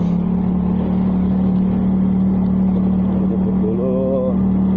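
Motorcycle engine running steadily at cruising speed while riding, an even drone with road and wind noise. A brief wavering higher tone comes in about four seconds in.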